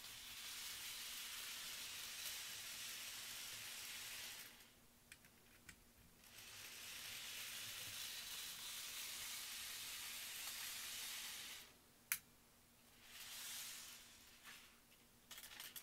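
Bachmann N scale steam locomotive running around its track, a faint high whirring hiss of the small motor and wheels that stops and restarts twice. A sharp click sounds about twelve seconds in, and a few light clicks of the cars being handled come near the end.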